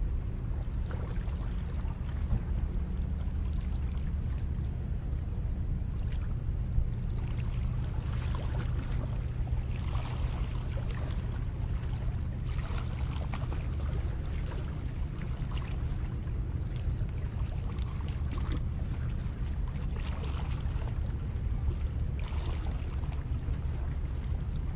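Wind rumbling steadily on the microphone at the shoreline, with waves washing in now and then as short hissing surges.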